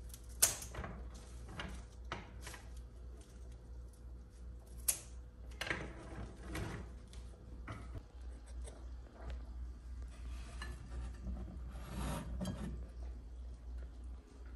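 Glass vases clinking and being shifted on a cupboard shelf, after a sharp snip of scissors through a rose stem about half a second in. A steady low hum runs underneath.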